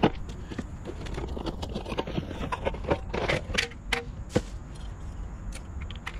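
A small portable propane stove being unpacked from its cardboard box and handled: scattered clicks, knocks and light metal clinks along with cardboard rustling, busiest about three to four and a half seconds in.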